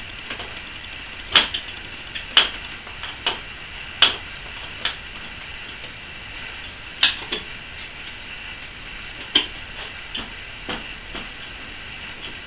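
Hand tools clicking against metal: an Allen key and a wrench working the stainless button-head screws and nylon-insert nuts of a motorcycle fairing support bracket, giving about a dozen sharp, irregularly spaced clicks and clinks over a steady hiss.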